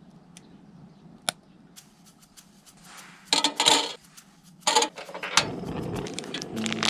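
Metal cookware and utensils being handled: a few sharp clicks, then two loud bursts of clattering, followed by a steady hiss from about two-thirds of the way in.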